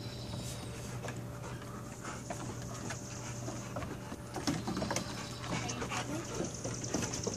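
Puppies and a larger dog scampering across a wooden deck, their claws and paws making quick irregular clicks and taps on the boards.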